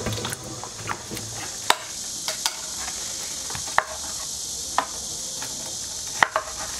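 A kitchen knife thinly slicing green tangerines on a cutting board: a sharp knock each time the blade meets the board, at irregular intervals of about a second, over a steady hiss.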